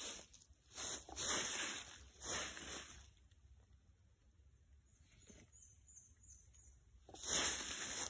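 Rustling in irregular bursts of about half a second to a second each: several close together in the first three seconds, then a quiet spell of about four seconds, then one more burst near the end.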